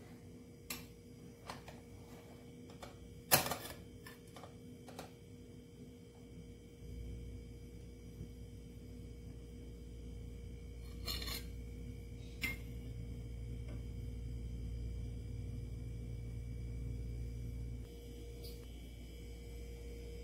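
Metal utensils clinking and scraping against a glass baking dish and a china plate while a dessert is cut and served: scattered light clicks, one sharper clink about three seconds in, and a few more a little past the middle, over a faint steady hum.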